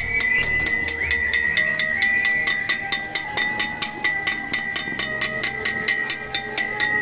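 Music with a quick, even beat of bell-like strikes, about six or seven a second, over steady ringing tones and a few changing notes.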